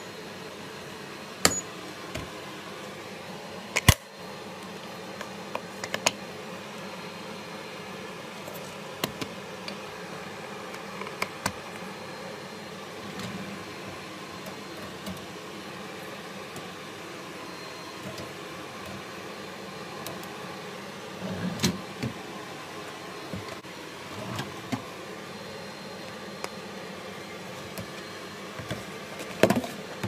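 Scattered clicks and knocks from a hOmeLabs compact countertop dishwasher being handled: control-panel buttons pressed with a short electronic beep about a second and a half in, then the wire dish rack and the plastic detergent dispenser moved, over steady background noise.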